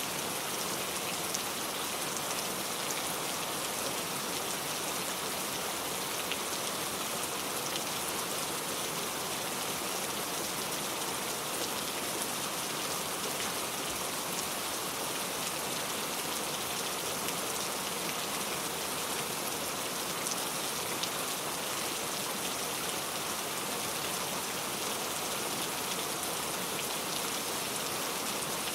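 Heavy rain falling steadily, a dense even hiss of drops pattering on a surface.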